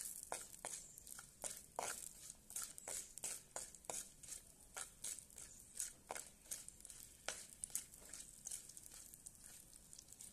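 Garlic cloves and fenugreek seeds frying in oil with a light sizzle while a spoon stirs them, scraping and tapping against the pan in quick, irregular strokes. Faint overall.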